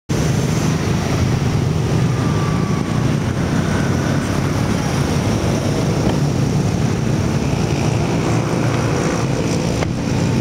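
Car engine running steadily close by, a low rumble that starts suddenly and holds level throughout.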